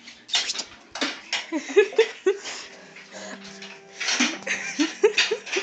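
A dog making short, quick vocal sounds during play, in two spells: one starting just after the start and one starting about four seconds in.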